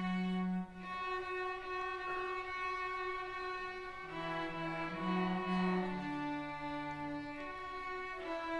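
Student string ensemble of violins and cellos playing together in long bowed notes, the low cello line under the higher violin parts, changing pitch every second or so.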